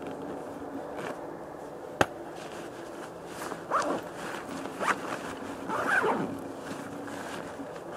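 Zipper on a Black Diamond Jetforce Tour 26L avalanche airbag pack being pulled shut in three short strokes, closing the pack over the refolded airbag. There is a sharp click about two seconds in.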